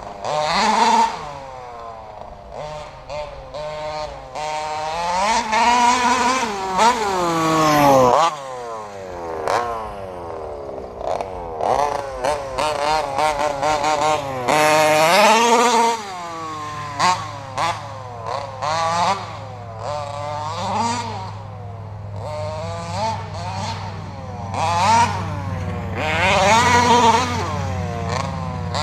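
1/5-scale RC truck's RCMAX 46cc two-stroke gas engine revving up and down over and over as it is driven, its pitch climbing and dropping with each throttle burst and brief pauses between. A steady low drone joins about halfway through.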